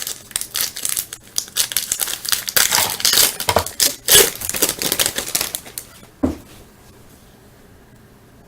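A foil trading-card pack being torn open and its wrapper crinkled, in quick rustling crackles that stop after about six seconds.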